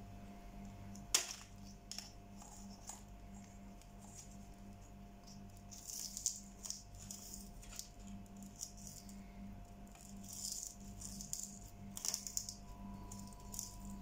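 Yellow-fronted Amazon parrot gnawing and chewing at a plant stalk: irregular beak clicks, crunches and scrapes, with a sharp knock about a second in.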